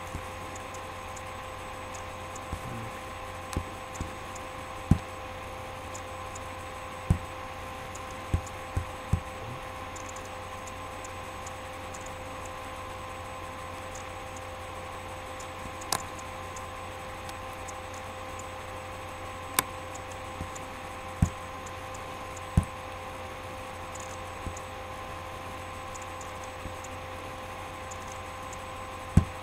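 Steady electrical hum with a few fixed tones, with scattered short clicks and soft knocks every second or few, as from handling things at a computer desk.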